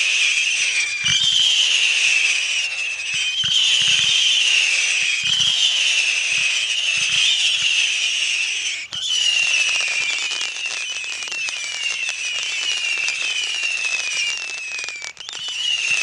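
A 100-shot missile battery firework cake firing whistling rockets one after another: a continuous chain of overlapping high whistles, each falling slightly in pitch, over a string of short launch thumps.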